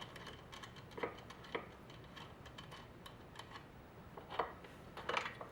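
A few light metallic clicks and taps of tools and brake parts being handled on a motorcycle's front brake caliper: two about a second apart early, then a small cluster near the end.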